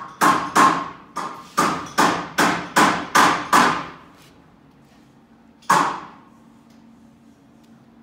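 A run of about ten sharp metallic knocks, two to three a second, each with a short ringing tail, then a pause and one more knock. The sound is like steel being struck, such as knocking on a painted steel purlin frame.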